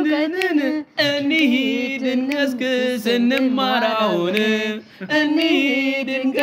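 Singing in Amharic, a song in praise of learning and knowledge, in long held phrases. The singing breaks off briefly about a second in and again near five seconds.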